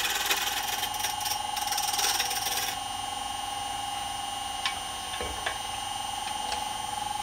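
Wood lathe running with a steady high whine while a turning tool cuts the spinning wooden ornament body, a hissing scrape for the first two and a half seconds or so. Then the cutting stops, leaving the lathe's whine, with a few light knocks.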